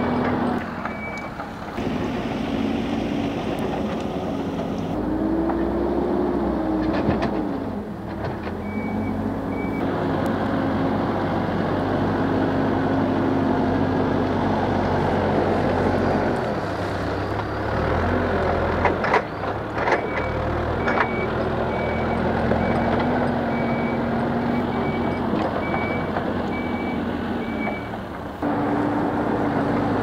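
Hidromek backhoe loader's diesel engine running and revving as it works the front loader bucket, with its reversing alarm beeping about once a second in stretches and a few knocks of the machine working.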